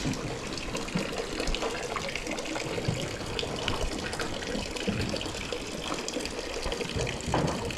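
A herd of goats and sheep eating grain and hay from their bowls: a steady crunching and rustling with many small clicks.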